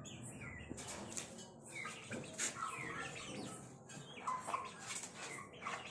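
Aseel chickens and chicks calling: many short, high, downward-sliding peeps from the chicks overlapping one another, with some lower calls and a few sharp clicks.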